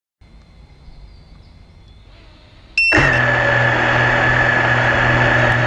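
FPV quadcopter's brushless motors idling on the ground with a loud, steady high whine. It starts suddenly with a short beep about three seconds in and cuts off abruptly near the end.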